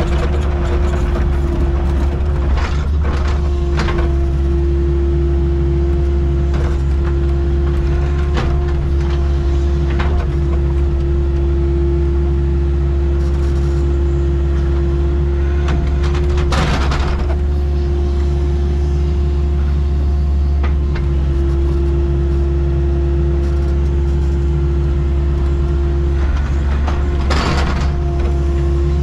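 Excavator's diesel engine running steadily under a constant whine, with a few short clanks and bursts of noise from the machine at work, the loudest two about seventeen and twenty-seven seconds in.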